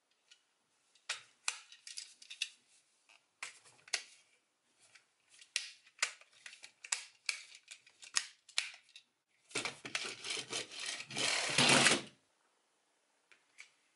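Hard plastic parts of a DX X Train Thunder toy train clicking and snapping as it is folded into shape, many separate clicks. About nine and a half seconds in, a longer, louder rustling and scraping noise takes over and stops near the end.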